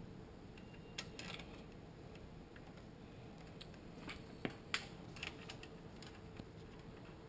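Faint, scattered light clicks and taps of small metal parts being handled against a Toyota A340 automatic transmission case, with a couple of sharper ticks about four to five seconds in.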